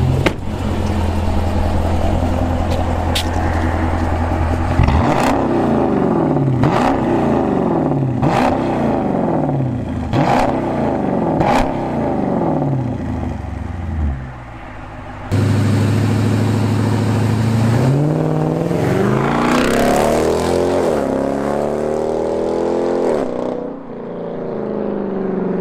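Dodge Durango R/T's 5.7 HEMI V8, running through an X-pipe with the resonators deleted, idles and is then blipped about six times in quick succession, each rev rising and falling in pitch. After a cut it idles again, then pulls away hard, the engine note climbing before fading near the end.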